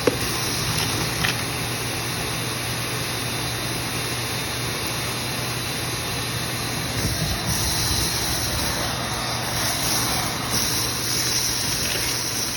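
Dryer vent cleaning equipment running: a steady rush of air over a constant low motor hum, getting a little brighter and hissier about halfway through.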